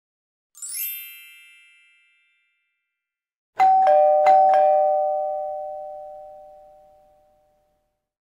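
A brief high twinkling chime, then a two-tone ding-dong chime, high note then low note struck twice in quick succession, ringing on and fading away over about four seconds.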